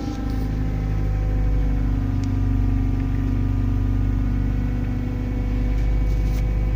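Mazda 323 (Familia) engine idling just after a start, its pitch easing down over the first couple of seconds and then holding steady. It is the test run of the alternator just rebuilt with new bearings.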